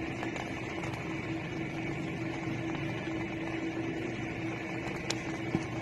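Steady rushing noise of a lorry fire burning, with a constant hum underneath. Two sharp pops come near the end, from the lorry's burning firecracker cargo.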